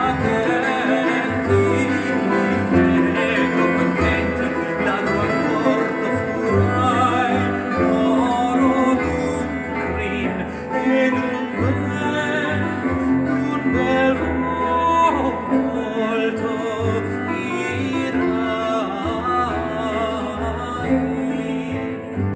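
Classical opera-style music with bowed strings and a melody of long held notes with vibrato. It fades down sharply near the end.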